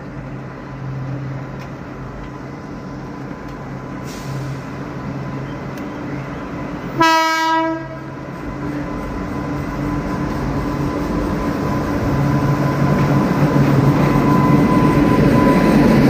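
Indian Railways locomotive running toward and past on a steel truss rail bridge, its steady hum and rumble growing louder as it comes close. It sounds one short horn blast about seven seconds in.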